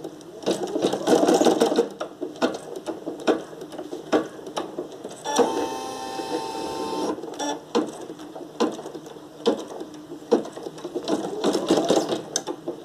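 Brother PE770 embroidery machine running, stitching a placement line: a rapid mechanical clatter of needle strokes, with a steady whine for about two seconds midway.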